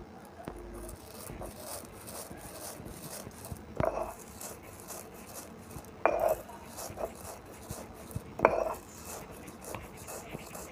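A stone roller (batta) is worked over dry-roasted coriander seeds on a flat stone grinding slab (sil-batta), crushing them coarsely with a gritty scraping and crackling. Three louder stone-on-stone knocks come about two seconds apart, near the middle of the stretch.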